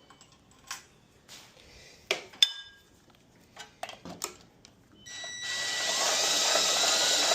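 A few scattered metallic clinks and knocks, then from about five seconds in the mower's four-stroke engine cranks over loudly and steadily, with a faint whine, as it is turned over to check for spark.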